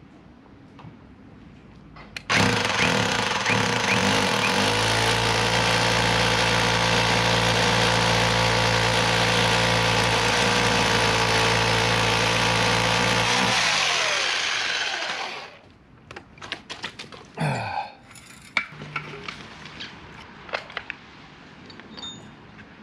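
Hammer drill boring a mounting hole into a wall: it starts about two seconds in, runs steadily for about eleven seconds, then winds down with falling pitch. Afterwards a few knocks and clicks of the drill being handled.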